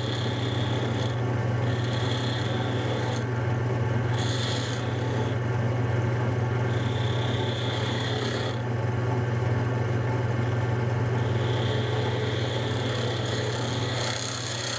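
Wood lathe running with a steady low hum while a turning tool cuts decorative grooves into a spinning wooden spindle, the scraping coming in about six short bouts.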